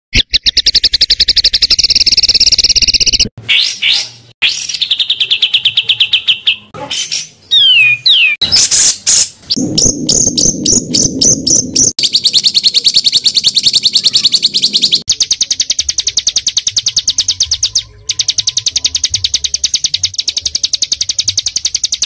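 Small songbirds singing very rapid, dense trills of high repeated notes, the 'tembakan' bursts used as training song for cagebirds. The runs change abruptly every few seconds, with a harsher, lower rattling passage about halfway through.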